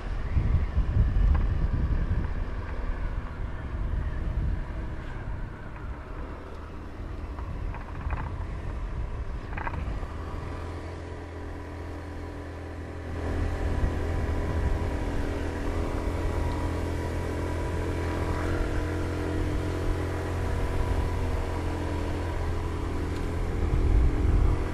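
Motorbike engine running while riding, with a steady low wind rumble on the microphone; the engine gets louder about halfway through and holds there.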